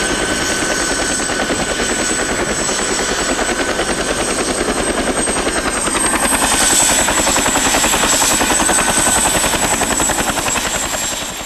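Helicopter running in flight: a steady, rapid rotor-blade chop with a high-pitched turbine whine.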